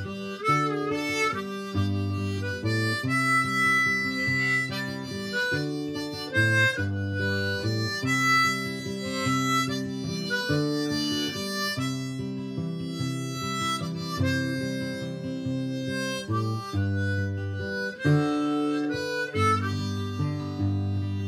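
Harmonica playing a blues solo of held and bent notes over strummed acoustic guitar chords.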